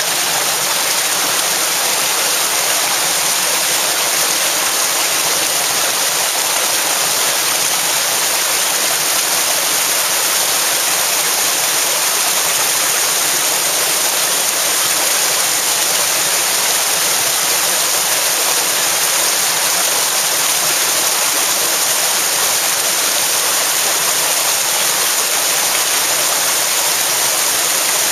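Fast-flowing, muddy stream rushing over rocks: a steady, loud rush of white water.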